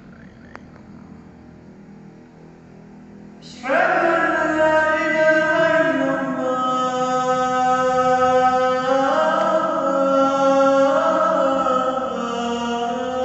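A man's voice chanting unaccompanied, coming in about four seconds in after a quiet stretch and holding long drawn-out notes that step up and down in pitch.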